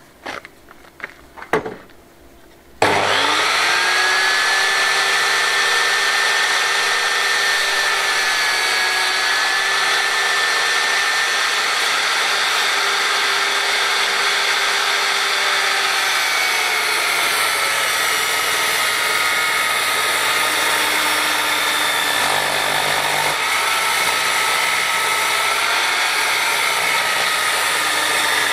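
A few knocks, then a benchtop table saw starts about three seconds in and runs steadily while ripping a wooden board lengthwise into strips; the motor's whine sags in pitch now and then as the blade takes the cut.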